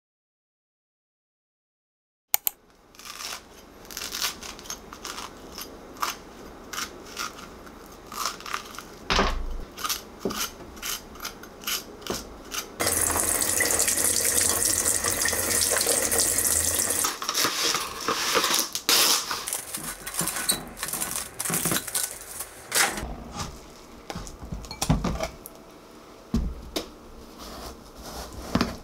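Kitchen tap running for about four seconds, water splashing over half a watermelon as it is rinsed over a stainless steel sink, with scattered clicks and knocks of kitchen handling around it. Near the end, a knife cuts into the watermelon rind.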